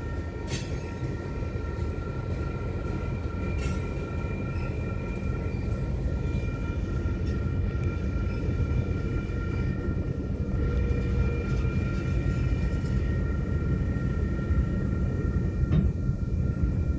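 Freight train of boxcars and covered hoppers rolling past a grade crossing: a steady low rumble of wheels on rail, with a steady high ringing tone above it. Sharp clacks come about half a second in, about four seconds in, and again near the end.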